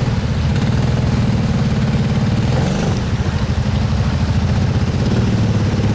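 Side-by-side UTV's engine running as it crawls up a steep rock step, with a short rise in revs about two and a half seconds in.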